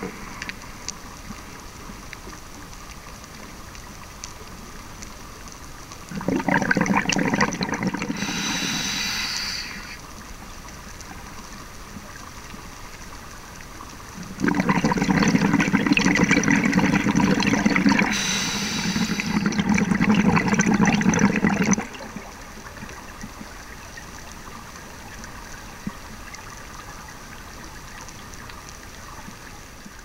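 Scuba diver's exhaled bubbles from a regulator, heard underwater: two long bubbling bursts, the second about twice as long as the first, over a steady underwater hiss.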